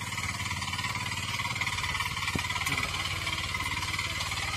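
Agri Mart 9 HP single-cylinder diesel engine of a walk-behind power tiller running steadily under load, an even rapid chugging, as it pulls a tillage implement through the soil.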